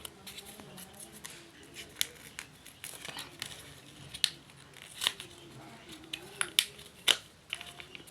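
Packaging being opened by hand: scattered sharp snips and clicks, like scissors cutting, among crinkling of wrapping. The loudest snips come about two, four and five seconds in and twice near the end.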